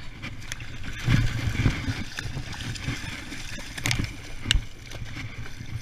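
Shallow floodwater sloshing, with low rumbling bumps and a few sharp clicks, about half a second, four seconds and four and a half seconds in.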